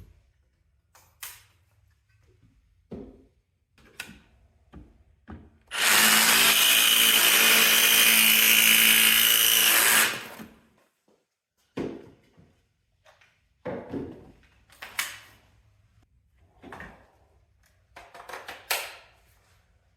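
Cordless Ryobi jigsaw on an oversized 6 Ah battery cutting across a pine 1x4. It runs at a steady pitch for about four and a half seconds from about six seconds in, then stops. Short knocks and clicks of handling the saw and board come before and after the cut.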